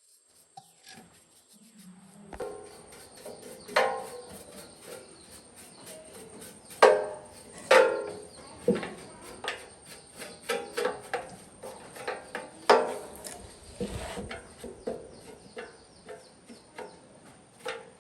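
Irregular knocks and clinks of hard parts being handled, some with a short metallic ring, starting about two seconds in.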